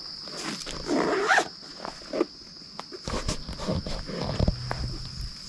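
Crickets chirping steadily in the dark, with irregular rustling, scraping and zipper-like handling noises as camping gear is packed up; a low rumble and hum come in over the second half.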